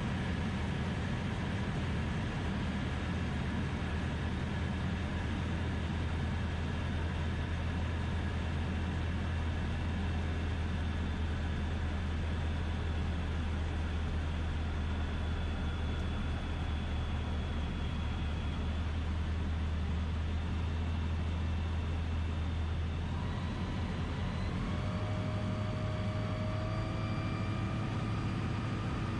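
Steady drone of a DynAero MCR01 ultralight's engine and propeller, heard inside the cockpit in flight. About 23 seconds in, the engine note steps slightly higher and a few faint higher tones come in.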